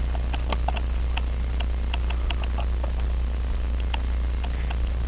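Light, irregular metal clicks and ticks of small watchmaking tools working a pocket watch movement while its balance cock screw is snugged down, over a steady low electrical hum.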